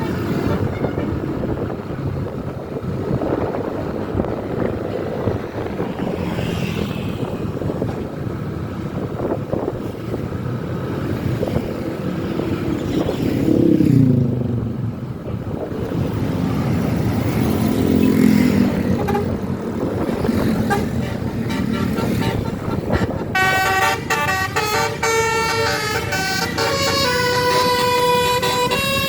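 Road traffic with a vehicle passing loudly about halfway through. Near the end a bus's multi-tone telolet horn plays a rapid melody of stepped notes.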